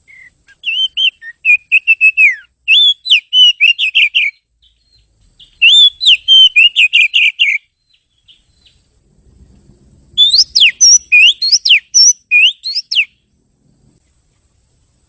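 Oriental magpie-robin (kacer) singing: three bouts of rapid, clear whistled notes that sweep up and down, each a few seconds long with short pauses between.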